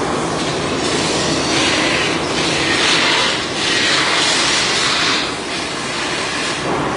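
Large sheet-metal dish turning on a spinning-lathe shaft, a steady mechanical rumble and clatter. Twice it swells into a louder hiss, for about two seconds from 1.5 s and again for over a second from about 4 s.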